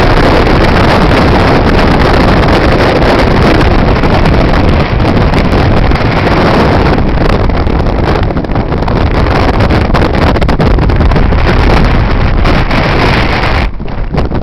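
Strong wind buffeting the microphone: a loud, steady rumbling roar.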